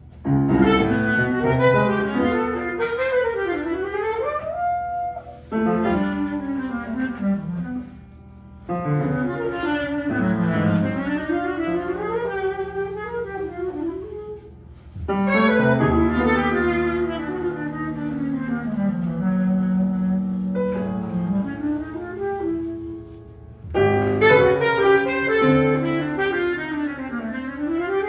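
Bass clarinet playing fast, winding improvised phrases with piano, in five bursts broken by short pauses.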